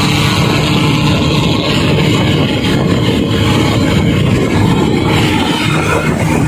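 Daihatsu Gran Max pickup driving at speed, heard from inside the cab: a steady engine drone mixed with road and wind noise.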